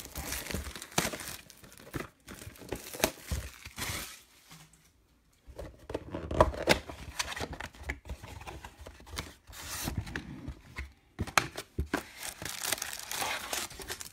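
Plastic shrink-wrap being torn and crinkled off a cardboard trading-card box, and the box opened, in a run of crackling rustles with a short pause about five seconds in.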